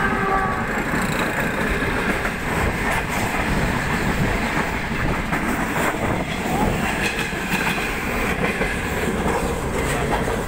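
Passenger train running at speed, heard close at an open carriage window: a steady rumble and rush of wheels on rail, with the clickety-clack of rail joints. A horn note that started just before ends within the first second.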